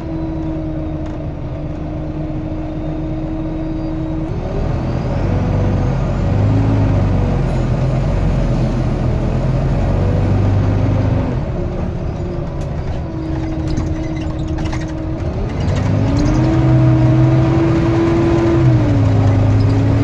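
Volvo B9TL double-decker bus's six-cylinder diesel and driveline heard from inside the bus while it drives, with a whine whose pitch holds, then steps and glides as the bus speeds up and changes gear. The whine is the vacuum-cleaner-like 'hoover' sound. It rises about three-quarters of the way through and drops sharply near the end, at a gear change.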